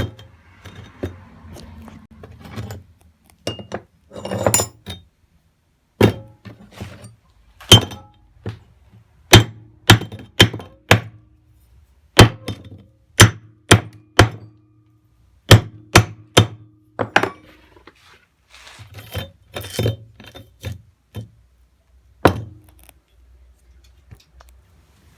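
Hammer blows on steel: about twenty sharp strikes at irregular spacing, several leaving a short ringing note.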